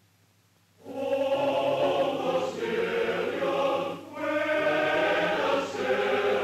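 A choir singing, entering about a second in after near silence, in two long sustained phrases with a brief break near the middle.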